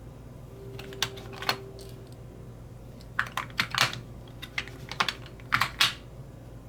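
Sharp clicks and taps of small hard objects being handled on a work surface, about a dozen in all: two about a second in, then a quick irregular run from about three to six seconds.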